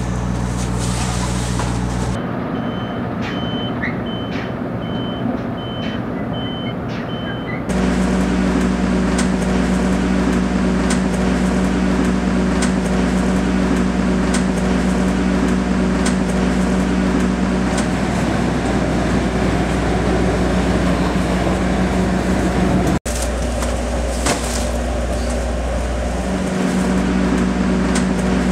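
Truck engine idling steadily, with scattered knocks from boxes being handled. For a few seconds early on, a reversing beeper sounds short, evenly spaced beeps, about two a second.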